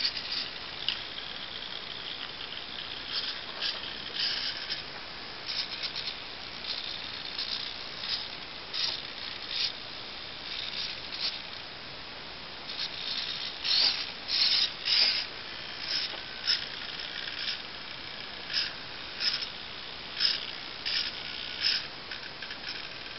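Small RC hobby servos in a plastic pan-and-tilt mount whirring in many short, irregular bursts as they are stepped back and forth by hand from a servo tester's knob.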